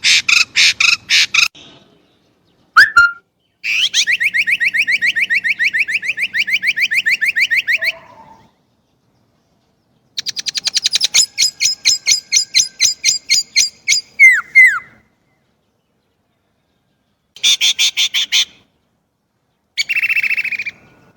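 Chinese blackbird calling in long bursts of rapid, evenly repeated high notes, about ten a second, with short gaps between bursts. Two single sliding notes come between bursts, one a few seconds in and one about halfway.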